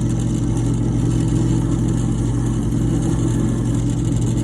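Drill press motor running steadily with a low hum, spinning the bit to drill a pilot hole in the panel.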